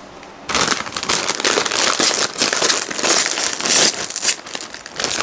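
Plastic potato chip bag crinkling loudly as it is handled and opened, starting about half a second in and dying down to softer crinkles near the end.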